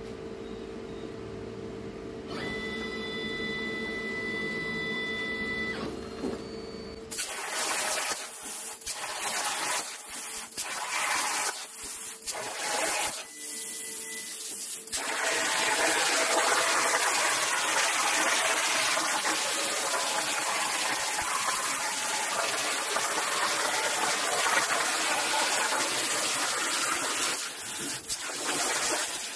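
CNC plasma cutter cutting 14 gauge steel sheet: the torch's loud, even hiss starts and stops several times, then runs without a break for about twelve seconds. It is preceded by a steady hum with a few held tones.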